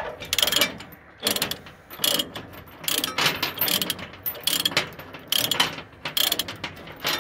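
Ratchet-type chain load binder being cranked back and forth on a tractor's tie-down chain, its pawl clicking in short bursts with each stroke of the handle as the chain is loosened.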